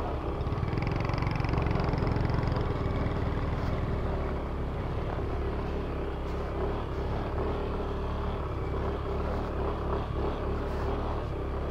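Motor vehicle running steadily while moving along: a constant engine hum over a low rumble and road or wind noise.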